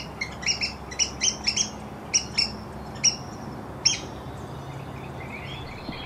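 Red-cockaded woodpeckers calling: quick runs of short, high calls, several a second, then a couple of single calls further apart, over a faint low hum.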